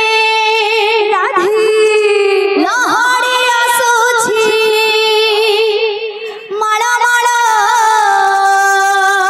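A woman singing an Odia kirtan devotional song into a microphone over a PA, holding long high notes with vibrato. She breaks off briefly about six seconds in, then goes on.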